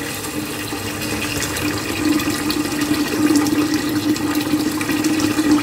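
Tap water running and filling a bowl as dried fish is rinsed to wash out its sand, with a steady hum under the water.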